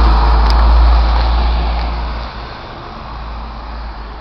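A road vehicle passing on a city street, loud with a heavy low rumble for the first two seconds, then fading away.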